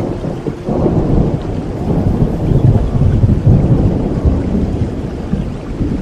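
Thunder rolling over steady rain: a low rumble swells about a second in, peaks midway and slowly tails off.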